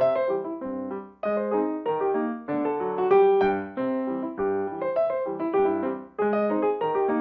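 Background piano music: chords and single notes struck in a light, regular pattern.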